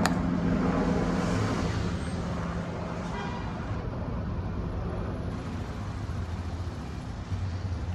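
Outdoor unit of a ductless air conditioner or heat pump running with a steady hum, under a wash of street traffic noise.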